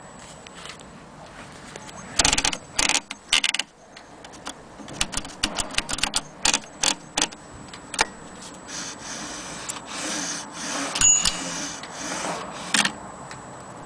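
AEG Mignon index typewriter being worked: irregular sharp clacks of its type mechanism starting about two seconds in, then a stretch of softer rattling and a last clack near the end.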